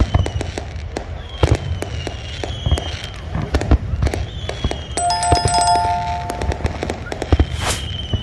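Fireworks bursting over open water, with repeated sharp bangs and crackles. About five seconds in, a short bell-like chime of steady tones rings for about a second over the bangs.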